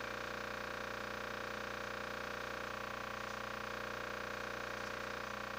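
A steady hum with a hiss over it, unchanging throughout.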